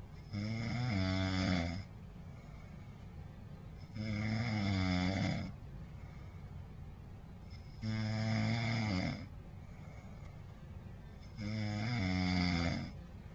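A person snoring in sleep: four loud snores, each about a second and a half long, coming roughly every three and a half to four seconds.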